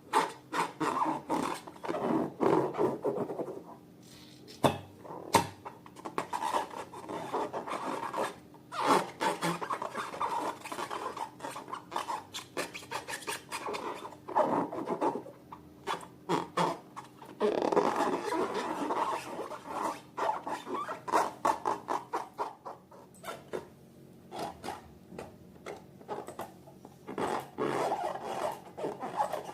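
Hands squishing and stretching slime, making irregular bursts of sticky crackling and rubbing with many small clicks and pops.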